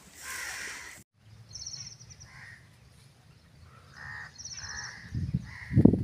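Crows cawing repeatedly in short calls, with a quick high bird trill heard twice in between. Near the end, gusts of wind buffet the microphone.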